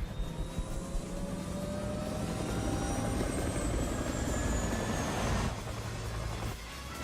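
Helicopter running: a steady low rotor-and-engine rumble with a faint whine slowly sliding in pitch, dipping briefly near the end.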